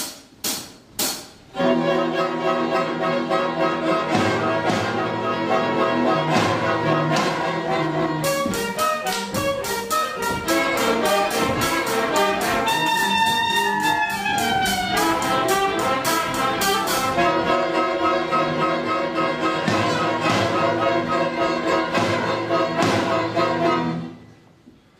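A school ensemble of cellos, violin, saxophones, clarinets, trumpets and drums playing an instrumental passage with a pulsing beat: a few short stabs, then full sustained chords, with a busier stretch in the middle carrying a melody line on top. It stops suddenly about a second before the end.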